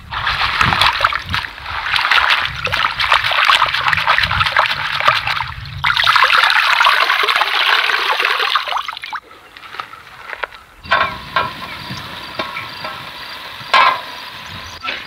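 Water splashing and pouring for about nine seconds, then easing to a fainter background with a few sharp clicks.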